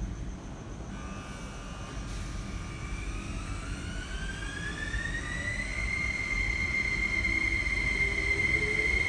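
SP1900 electric train pulling away from the platform: the traction motors' whine rises in pitch for about five seconds as it accelerates, then holds a steady high tone. A lower motor tone starts climbing near the end, and the sound grows louder throughout.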